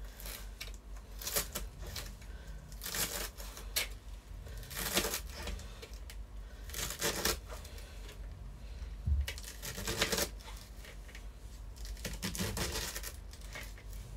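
Kitchen knife shredding green beans into thin strips on a plastic chopping board: irregular crisp cuts that tap the board, some in quick pairs.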